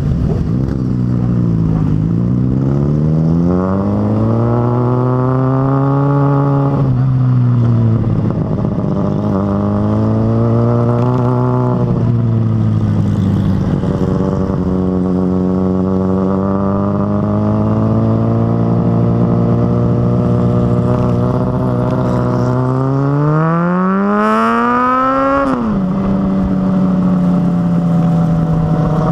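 Motorcycle engine under way, accelerating through the gears. Its pitch climbs and drops sharply at each shift, holds steady at cruising speed for several seconds, then climbs once more to a last sharp drop near the end.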